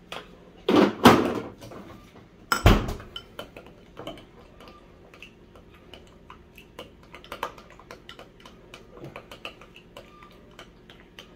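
Two loud noisy sounds near the start and a heavy thump about two and a half seconds in, then a spoon stirring a thick sauce in a container, with many light clicks and clinks against its sides.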